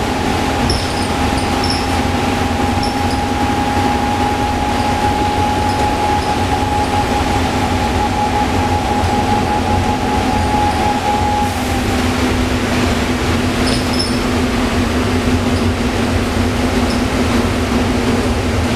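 Optare Solo M950 bus heard from inside while driving: its Cummins ISBe diesel engine and road rumble run steadily, with a steady whine that fades out about two-thirds of the way through and a few light rattles.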